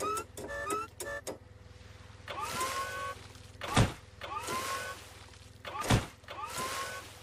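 Forklift motor humming steadily under a few short beeps, then twice whining up as it surges forward, each surge ending in a heavy thud as the forks ram into the beached whale.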